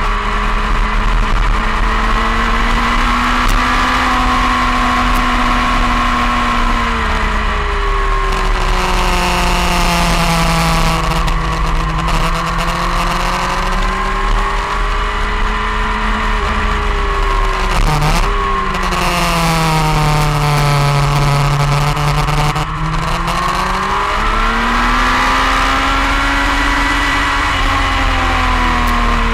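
Sport motorcycle engine heard from onboard at track speed, its pitch falling and rising several times with throttle and gear changes through the corners. Midway it dips sharply and recovers.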